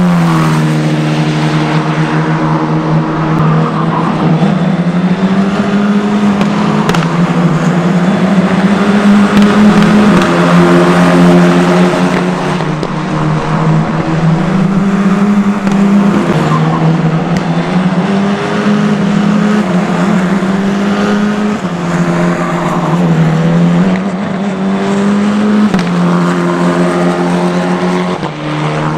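Race car engines, Formula 4 single-seaters among them, running at speed on a circuit as cars pass one after another. The engine note climbs and drops in steps every few seconds.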